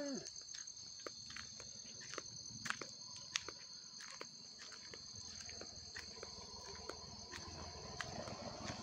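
Night insect chorus: crickets chirring steadily in two high tones, with scattered light clicks of footsteps on the road.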